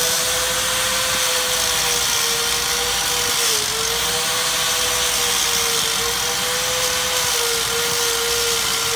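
High-speed rotary power tool running steadily with a strong hiss, its pitch sagging slightly now and then under load, used to clean around the brake caliper's banjo bolt so a socket will fit over it.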